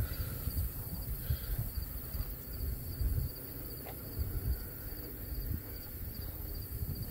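Wind buffeting the microphone in low, uneven gusts, with insects trilling steadily and faintly in the background.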